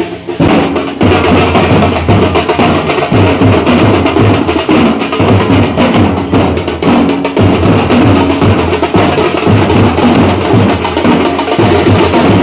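Loud drum-led percussion music with a fast, steady beat and short held low notes repeated over it.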